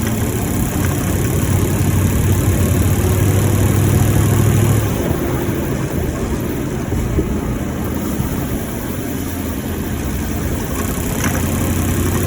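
2018 Ford F-150's 5.0 L V8 running while driving, its hum building for the first five seconds, easing off, and building again near the end. The owner reports a knocking noise from this engine while driving.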